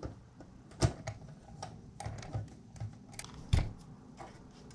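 Irregular clicks and knocks of a screwdriver and hands against the sheet-metal chassis of a double-DIN car stereo head unit. Two sharper knocks, about a second in and near the end, are the loudest.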